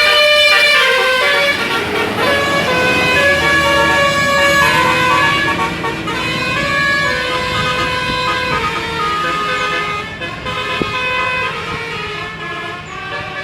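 Indonesian bus 'telolet' multi-tone air horn playing a melody of stepped notes, several tones at once, loud and unbroken for over ten seconds.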